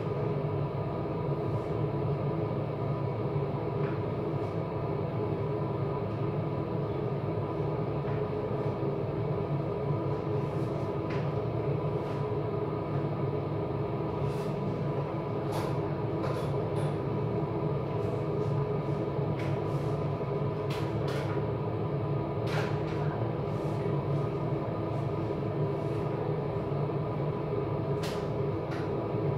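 A steady mechanical hum, like a motor or fan running, holding several even tones without change. Light sharp clicks or taps come now and then, more of them in the second half.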